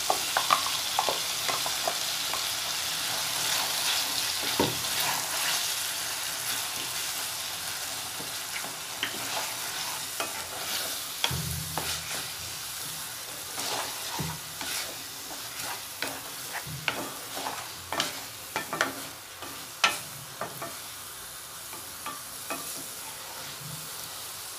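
Onions, tomatoes and freshly added ground masala paste sizzling in a stainless steel kadai while a spatula stirs and scrapes, knocking against the pan many times. The sizzle is strongest in the first several seconds and grows fainter later.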